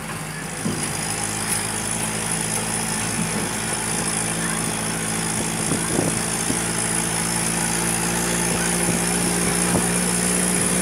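Engine of a tourist road train running steadily as it rolls along the road, a low even drone that grows a little louder toward the end.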